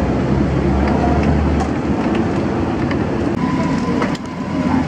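Steady rumbling noise of a roadside deep-frying stall mixed with street traffic, heaviest in the first couple of seconds, with a few light metal clicks of tongs and wire baskets. The sound shifts briefly about four seconds in.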